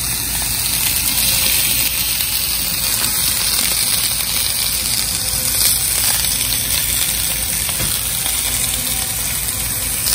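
Tomatoes and serrano chilies sizzling steadily on a hot Blackstone flat-top griddle as they char and blister.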